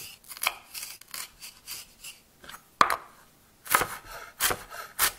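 Chef's knife dicing a jalapeño on a wooden cutting board: irregular chops with the blade knocking on the board, softer at first and sharper from about three seconds in.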